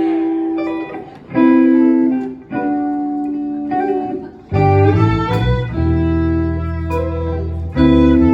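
Live soul band playing a slow instrumental intro: electric guitar chords ring out, and a low bass line comes in about halfway through.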